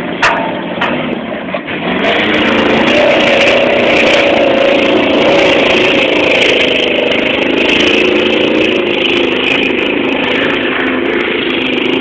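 Ford Explorer's engine running hard and revving under load as it churns through a flooded mud pit. The engine note comes up about two seconds in and holds steady and loud, its pitch wavering up and down.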